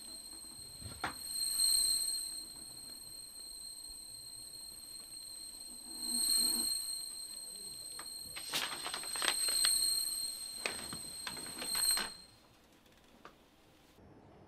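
A steady high-pitched electronic ringing tone that swells and fades several times, with a run of sharp clicks over its last few seconds. It cuts off abruptly about twelve seconds in.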